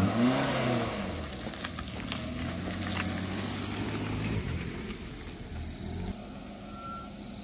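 A Maruti Suzuki Baleno hatchback's engine revving as the car pulls past close by, then running steadily as it drives away. The sound drops lower about six seconds in.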